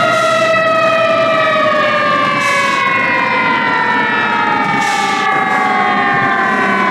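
Scania K124 bus running with a whining tone that falls slowly and steadily in pitch, as when it winds down or slows. Short hisses come about every two and a half seconds.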